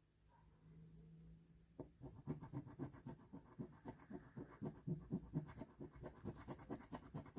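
A coin scratching the latex coating off an instant lottery ticket, in quick repeated scraping strokes starting about two seconds in.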